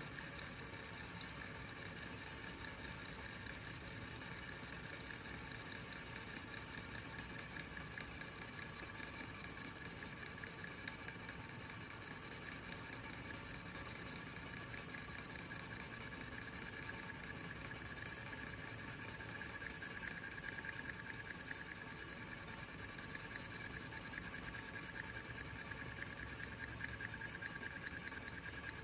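Metal lathe running while a cutting tool turns the face of a spinning metal plate: a steady machine hum with a high scraping tone from the cut, growing louder over the last third.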